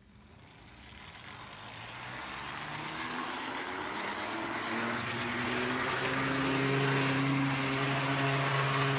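Motor and gear drive of an HO scale Hobbytown power chassis running on track, its hum rising in pitch and loudness over the first several seconds as it gathers speed, then holding steady. It is a bit noisy, from the upper universal joint.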